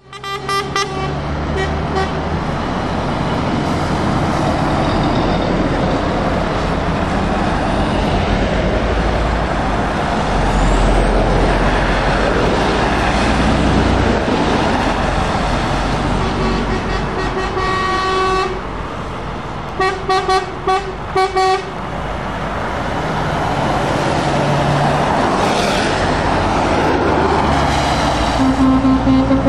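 Lorries and cars driving past on a wet road, with diesel engines running and tyres hissing through the water. A lorry air horn sounds one long blast about halfway through, then several short toots, and a lower-pitched horn toots near the end.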